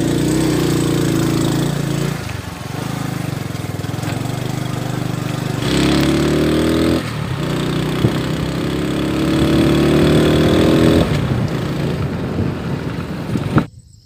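Motorcycle engine running under way. Its pitch climbs twice, each climb ending in a sudden drop, as it pulls through the gears. The sound cuts off shortly before the end.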